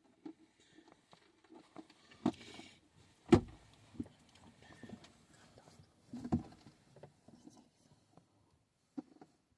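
Irregular knocks and thumps with short pauses between them. The loudest comes about three seconds in, and strong ones come about two and six seconds in.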